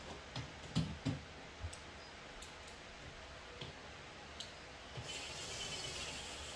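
Cordless drill and screws clicking and tapping against a pendant light's metal ceiling canopy while the canopy is fastened, then about five seconds in the drill runs for a second and a half, a steady high hiss, driving a canopy screw.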